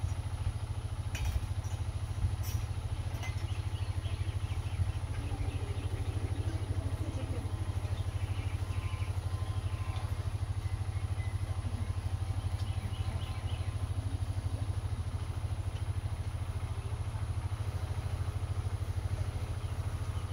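An engine running steadily, heard as a low, rapid, even pulsing.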